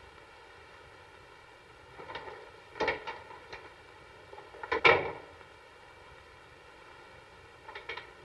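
Knocking and clatter at a hotel room door, in several short bunches of sharp knocks, the loudest about five seconds in.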